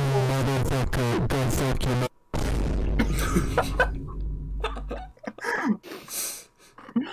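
Soundtrack of a deliberately garbled meme-video edit: incoherent, distorted speech over music. It cuts out briefly about two seconds in, then returns with a deep bass drone under the voices until about five seconds in, followed by scattered short vocal sounds.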